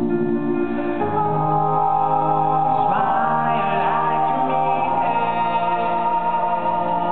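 Live pop song: a male lead singer sings over held vocal-harmony chords from a male a cappella group and acoustic guitar, the voice sliding up and down about halfway through. The sound is reverberant, as in a large hall.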